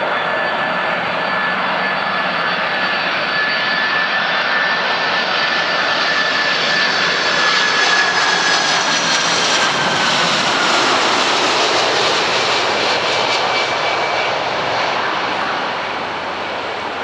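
Lufthansa Boeing 747-400 on landing approach, its four General Electric CF6-80C2 turbofans running with a loud jet noise and a high whine. The whine slides down in pitch about halfway through as the airliner passes. The sound is loudest midway and fades toward the end.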